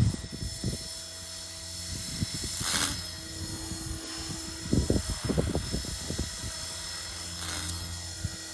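Align T-Rex 470 electric RC helicopter in flight, its motor and rotor blades whining steadily. Irregular low buffeting comes and goes over the whine.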